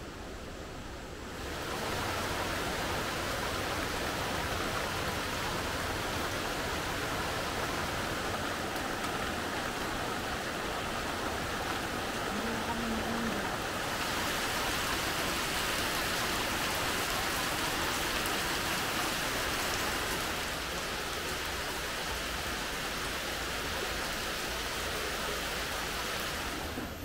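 Steady rush of flowing water. It gets louder about a second and a half in and brighter again about halfway through.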